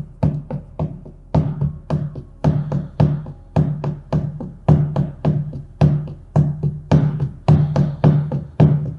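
Large shamanic frame drum beaten with a padded beater in a steady rhythm, a few strokes a second, each stroke a sharp hit with a low booming ring.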